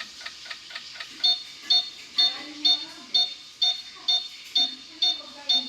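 Toy washing machine's electronic sound effects: a steady ticking about four times a second, then, about a second in, a loud repeating beep-beep alarm about twice a second.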